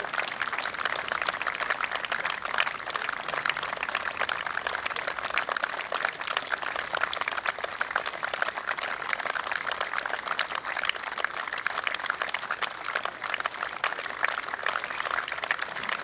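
Crowd applauding steadily: many hands clapping in a dense patter.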